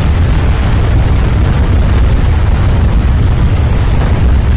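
Sound-effect rumble of a tsunami surge flooding a city: a loud, steady deep rumble with rushing noise over it.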